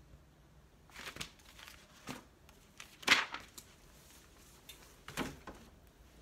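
Pages of a sheet-music book being flipped and handled, in four quick papery rustles. The loudest comes about three seconds in.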